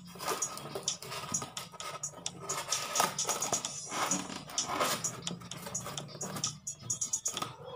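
Styrofoam packing blocks rubbing and creaking against each other and the box as they are pulled out by hand, with irregular rustling and crackling.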